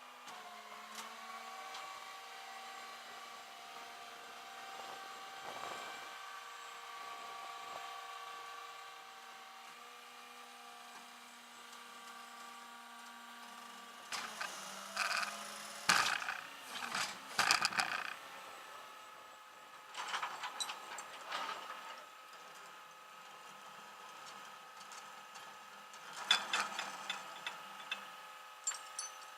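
A steady mechanical hum with a faint whine, shifting slightly in pitch a few times, broken by bursts of rattling and clanking about halfway through, again a little later and near the end.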